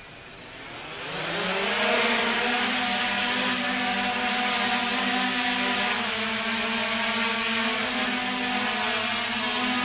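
Quadcopter's four electric motors and propellers spinning up about a second in, rising in pitch as it lifts off, then a steady buzzing hum while it hovers, the pitch wavering slightly.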